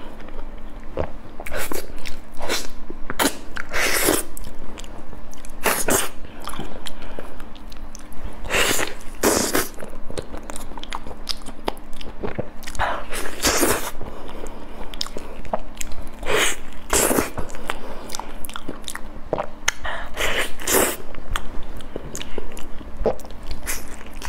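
Close-miked eating of creamy durian flesh: wet bites, smacking and chewing in irregular bursts.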